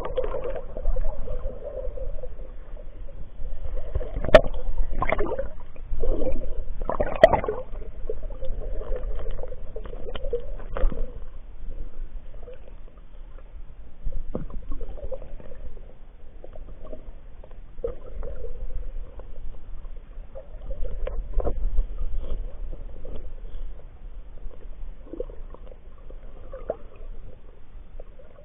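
Sea water sloshing and splashing in irregular bursts, louder in the first dozen seconds and fainter after.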